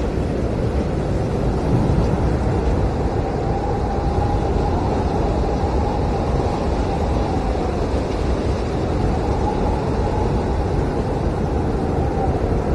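Blizzard wind blowing hard and steadily, with a faint howling whistle that swells and fades twice.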